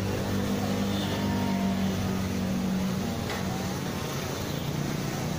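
Motorcycle engines idling in a stopped traffic jam: a steady low hum with street noise.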